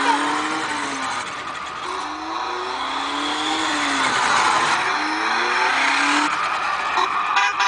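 Remote-control toy Corvette driving across wooden deck boards, making a revving sound that rises in pitch again and again over a steady hiss. A few sharp clicks come near the end.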